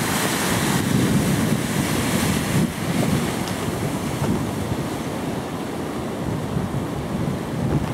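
Lake waves breaking and washing ashore, a steady surging rush, with wind buffeting the microphone.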